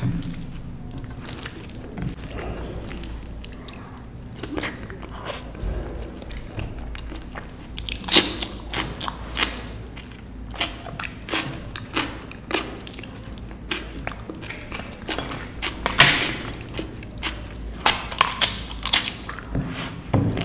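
Close-miked eating of dal and rice: chewing with wet mouth clicks and smacks, sparse at first and coming thick and fast in the second half, with a few sharper smacks about halfway and near the end.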